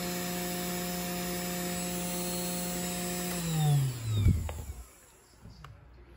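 500 W brushed DC spindle motor of a 3018-Prover CNC running steadily at about 12,000 RPM, then switched off about three and a half seconds in, its pitch falling as it spins down to a stop. A couple of knocks sound as it winds down.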